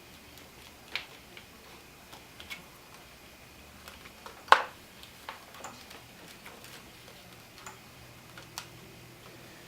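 Scattered light clicks and taps of wiring being handled and routed through an engine bay, with one sharper click about four and a half seconds in.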